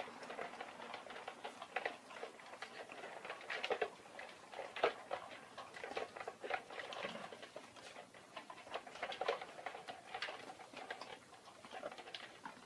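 Several collies eating from plastic bowls on paving: many small, irregular clicks and crunches of chewing and bowl contact, with no steady rhythm.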